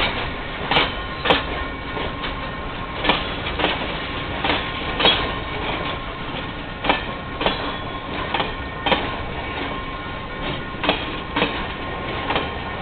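Loaded freight hopper wagons rolling slowly past over a steady rumble, their wheels clacking over a rail joint in pairs about half a second apart as each bogie goes by, a pair every second and a half or so.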